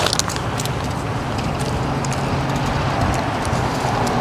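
Road traffic: a motor vehicle's engine hum and tyre noise, growing a little louder near the end as it draws closer.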